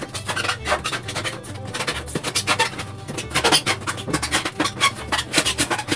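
A sharp tool cutting through the wall of a styrofoam cooler, in rapid, uneven scraping strokes.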